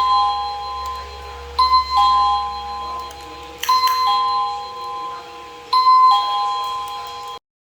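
Daytech DB09 wireless doorbell chime ringing a two-note ding-dong, high then low, four times about two seconds apart, with a click at the start of each ring. It cuts off abruptly near the end.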